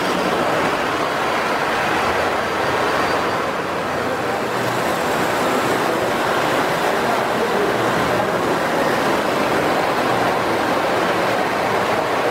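Lionel O-gauge toy trains running on three-rail tubular steel track: a steady rumble of wheels and motors that does not let up.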